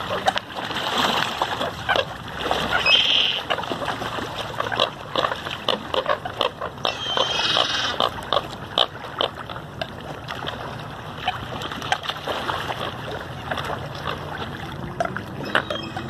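A dense flock of American coots and ducks splashing and jostling on the water as they crowd in for food, with many short splashes and pecks and grunting calls. A brief higher call stands out about three seconds in and another around seven seconds.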